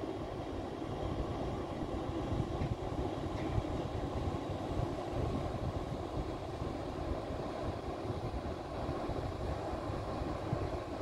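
Steady low rumble of a river cruise ship's engines as it gets under way, with wind buffeting the microphone.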